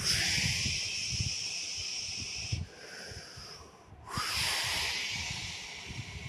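Channel-intro sound effect: two long hissing whooshes, the first dropping away about two and a half seconds in and the second sweeping up about four seconds in, over a low rumble.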